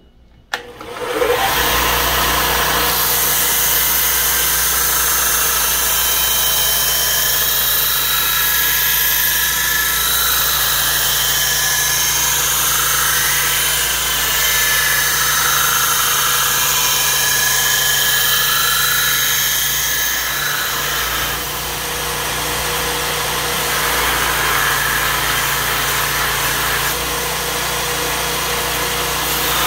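Belt grinder switched on with a click and running up to speed about a second in. A steel knife blank cut from a circular saw blade is then ground against the abrasive belt: a steady motor hum under a loud grinding hiss that eases briefly about two-thirds of the way through.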